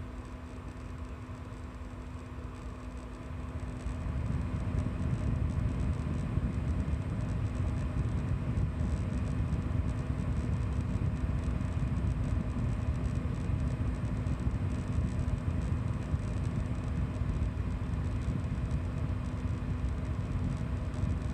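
Coil whine from an EVGA 750 W Bronze BQ power supply under load: a steady electrical whine and buzz, over a low rumble that gets louder about four seconds in.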